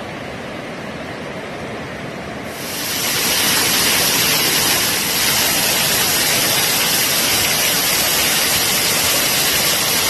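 Rushing water from a river and waterfall, a steady hiss. About two and a half seconds in it gets louder, with much more hiss, as of falling water close at hand.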